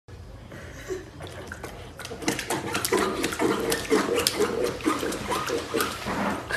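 A puppy with its front paws and face in its bowl, snuffling and slurping in it. The sound is quiet at first and turns into busy, irregular slurps and clicks from about two seconds in.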